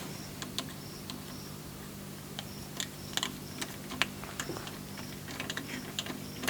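Irregular light clicks and taps, a few each second, over a steady low hum.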